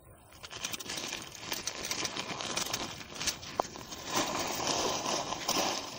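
Nylon stuff sack rustling and crinkling as it is handled, with scattered light clicks. It starts about half a second in.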